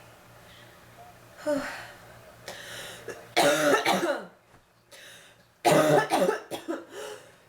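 A woman with bronchitis coughing in harsh, voiced fits: a couple of smaller coughs, then a loud bout about three seconds in and another about six seconds in that trails off into several short, quick coughs.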